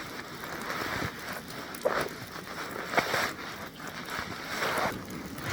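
A few short rustles and crunches from someone moving about and handling gear in snow, coming irregularly about a second apart over a low steady hiss.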